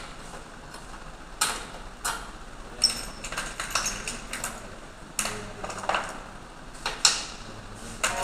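Irregular metallic clicks, taps and clinks of hand tools and parts being handled during work on an air-conditioning compressor.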